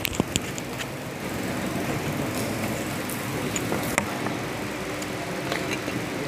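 Handling noise from a headset microphone being taken off and set down on a table: scattered clicks and rustles, with a sharper click at the start and another about four seconds in. Under it runs a steady background hum.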